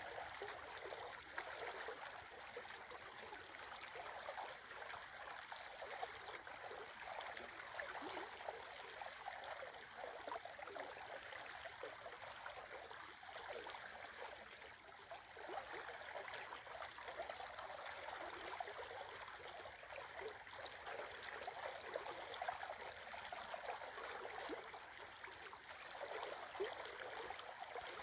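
Shallow river running over a rippling riffle of its bed, a steady babble of moving water.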